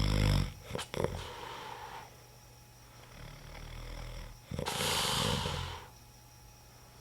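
A man snoring loudly in his sleep: one snore tails off just after the start, and another snore comes about four and a half seconds in and lasts about a second and a half.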